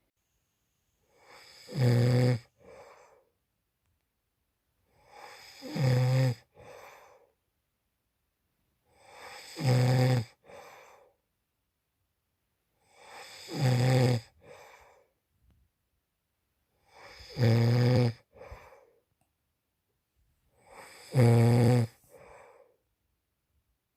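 A man snoring loudly in his sleep: six snores, one about every four seconds, each swelling into a loud buzzing snore on the in-breath and followed by a short, fainter sound.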